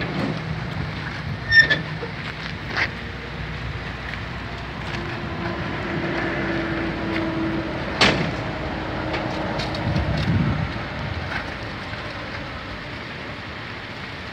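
A vehicle engine running steadily, with a few short knocks and one sharp click about eight seconds in.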